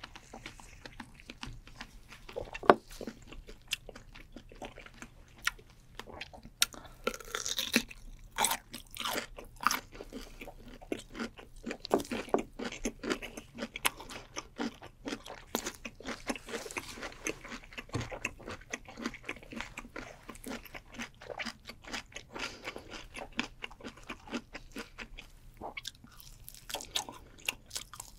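Close-miked chewing and crunching of grilled dried fish: a dense run of sharp crunches and wet mouth clicks, with one loud crack a few seconds in.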